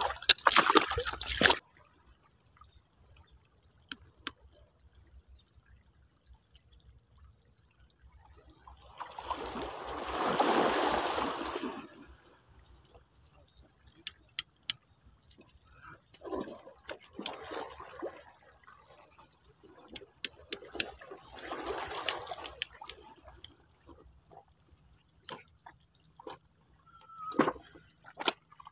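Shallow seawater trickling and sloshing among the rocks of a tidal flat, with a louder rush of water that swells and fades over about three seconds about ten seconds in. A few faint clicks are scattered through it.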